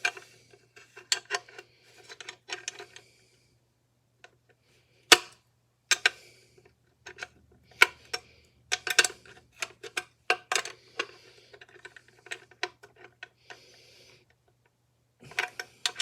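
Hand tools and metal parts of a miter saw clinking and clanking as it is taken apart: irregular sharp clinks and knocks, an adjustable wrench among the tools, with the loudest knock about five seconds in.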